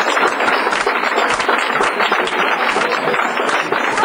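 Crowd applauding, many hands clapping irregularly, with voices mixed in.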